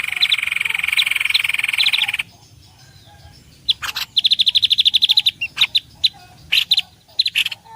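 Songbird calls played as a bird-trapping lure: a rapid trill for about two seconds, then after a short pause a fast run of high repeated notes followed by scattered sharp chirps.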